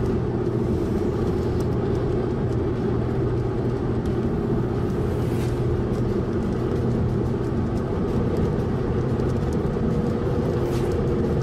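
Steady car engine and road noise heard from inside a moving vehicle: an even low drone with a constant hum.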